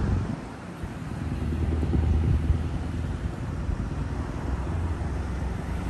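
Steady low rumble of a vehicle engine, after a passing car's engine and tyre noise dies away within the first second.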